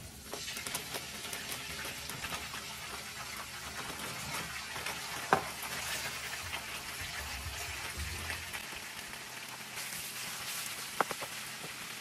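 Cubes of raw beef sizzling as they sear in a pan on high heat, a steady frying hiss that starts as the meat hits the pan. A sharp click comes about five seconds in and another near the end.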